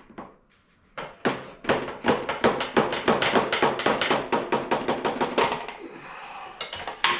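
Ratchet clicking rapidly and evenly, about ten clicks a second, as a bolt on the motorcycle's shock mount is backed out. The clicking stops, then a single metal knock follows near the end.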